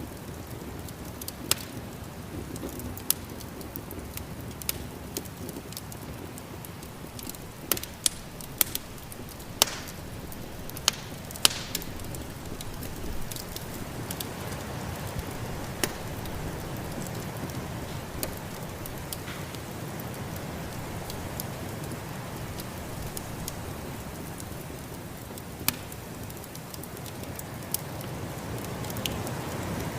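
Wood fire crackling, with scattered sharp snaps and pops, most frequent in the first half, over a steady low rushing background.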